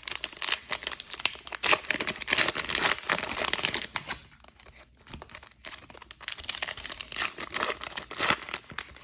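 Trading-card pack wrapper being torn open and crinkled, a dense crackling that eases off briefly about halfway through.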